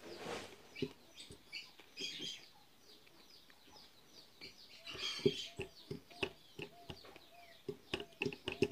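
Faint bird calls, with short chirps and a run of small repeated calls in the second half, mixed with scattered light clicks.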